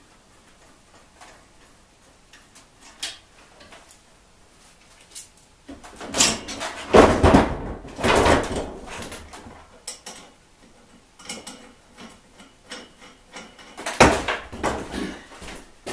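Irregular knocks and clatter of tools and trike parts being handled during disassembly, a few faint clicks at first, then louder clusters a little after the middle and again near the end.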